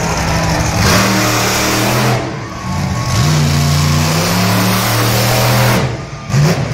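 Monster truck engine revving loudly, climbing about a second in, easing off, then climbing again and holding before dropping briefly near the end.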